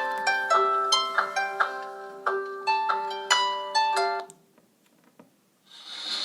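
Samsung Galaxy J1 mini stock ringtone: a quick melody of plucked, harp-like notes that ends about four seconds in. After a short gap, a swelling hiss begins near the end as the next ringtone starts.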